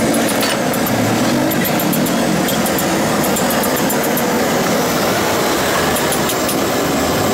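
A steady engine-like drone with hiss, unchanging throughout, with faint scattered ticks.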